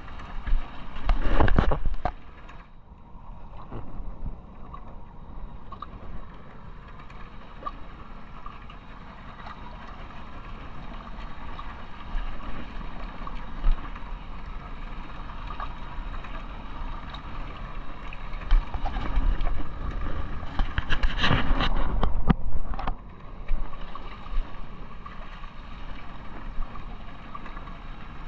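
Electric deep-drop fishing reel winding line up from deep water with a steady squealing whine, hauling in a multi-hook rig. Two loud gusts of wind on the microphone come about a second in and again around twenty-one seconds.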